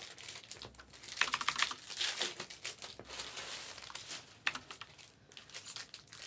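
Crinkling and rustling of trading-card pack wrappers being handled, with irregular small crackles and clicks.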